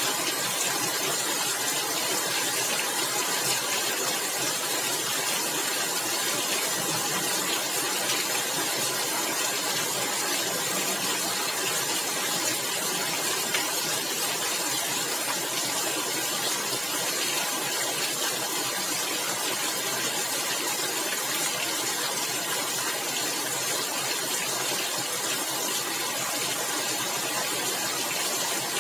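Steady rain falling on a tiled roof: an even, unbroken hiss of rainfall.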